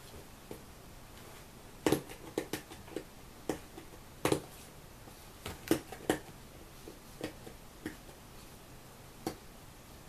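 Hands handling a toy box and picking at the sticky tape on it: irregular sharp clicks and taps, clustered around two seconds in and again around four to six seconds in, with a few more toward the end.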